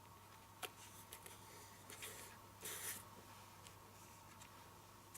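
Near silence with faint handling noises of stamping supplies: a light click about half a second in, a few small ticks, and a brief rustle a little before the middle.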